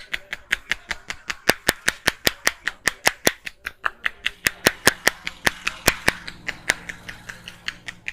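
Rapid percussive hand strokes of a head massage: a barber's hands striking the head in a steady rhythm of sharp claps, about five a second.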